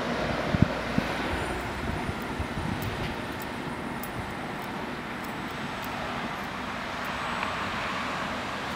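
ED250 Pendolino electric train standing at the platform, its onboard equipment running with a steady even noise, with a couple of knocks in the first second.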